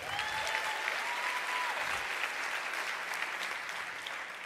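Audience applauding, with some cheering in the first couple of seconds. The applause fades away near the end.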